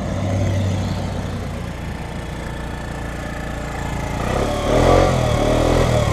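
Lance Cabo 50 scooter's 50 cc engine running steadily. About four and a half seconds in it revs up and back down, the loudest part.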